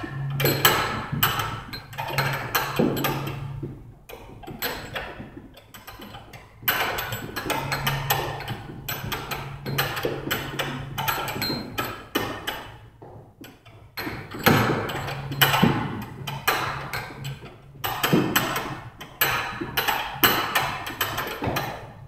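Heavy battle ropes being whipped in waves, slapping the gym floor in quick, repeated strikes. The rhythm eases off twice before picking up again.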